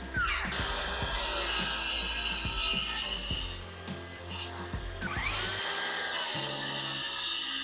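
Two long rasping stretches of a tool working wood, each about three seconds, over background music.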